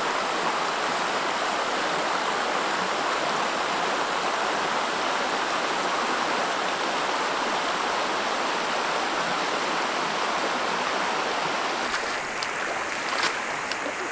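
Shallow river flowing over stones: a steady rush of running water. Near the end it is joined by a few small splashes.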